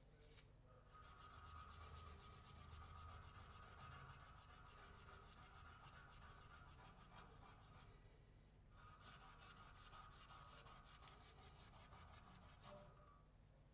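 Faint rubbing and scraping of a tool working the cut ends of an aluminium air-conditioning tube, in two spells of about seven and four seconds with a short break between, a thin steady whine running through each.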